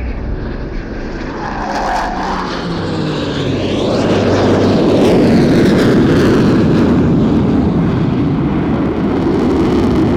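Military formation flypast of a PC-9M turboprop, Eurofighter Typhoon jets and an A400M transport. A falling-pitch tone comes about two seconds in, then jet noise swells to a loud, steady rush from about four seconds in.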